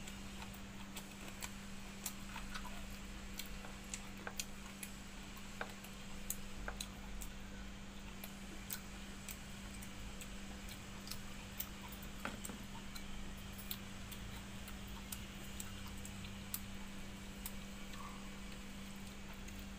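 Soft eating sounds from someone eating watered rice by hand: short mouth clicks and smacks of chewing, roughly two a second and not quite even, with fingers stirring in a steel bowl, over a steady low hum.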